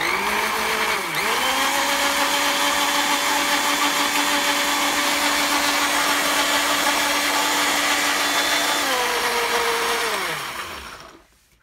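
Tefal jug blender motor blending apple pieces and almond milk. It starts up, dips briefly in pitch about a second in, runs at a steady pitch for about eight seconds, then winds down with falling pitch and stops near the end.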